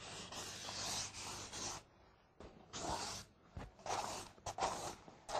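Sketching strokes scratching across paper: a continuous run of scratching for about two seconds, a brief pause, then several short separate strokes.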